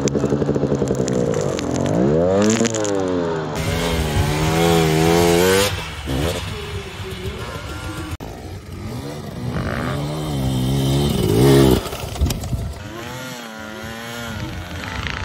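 Off-road motorcycle engines revving hard, their pitch rising and falling again and again as the bikes churn through deep, soft snow, with several abrupt jumps from one bike to another.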